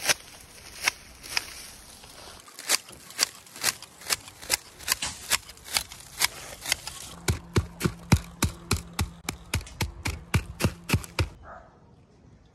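Long-handled hand shears snipping through straw thatch in a run of sharp, repeated cuts. The cuts come about two a second at first, quicken to about four or five a second after about seven seconds, and stop about a second before the end.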